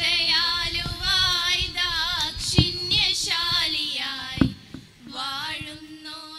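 Schoolgirls singing a wavering, ornamented melody together into a microphone, amplified through the stage sound system. A couple of sharp knocks sound in the middle.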